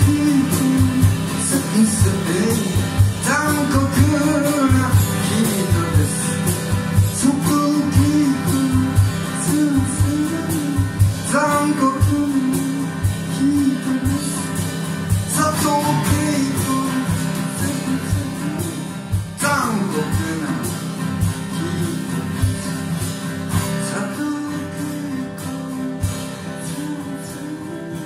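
A live song: a male voice singing in long, sliding phrases over strummed acoustic guitar and percussion. The music gradually gets quieter toward the end.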